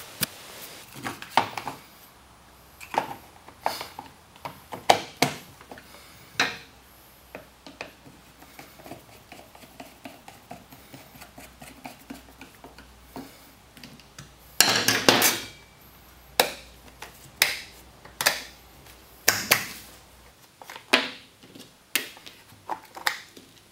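Hand tools and parts of a Stihl 028 AV chainsaw clicking, tapping and clinking on a workbench as the saw is taken apart: irregular small knocks, with a louder rattle about fifteen seconds in.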